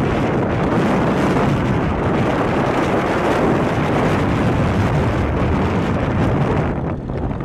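Wind rushing over the microphone of a camera on a moving motorcycle, mixed with the motorcycle's running and road noise: a loud, steady rush that eases briefly near the end.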